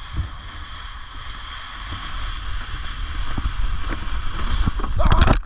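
Plastic sled sliding fast over snow: a steady scraping hiss with wind on the microphone and low bumps, growing louder, and ending in a loud burst of noise as the sled hits something and the rider goes down into the snow.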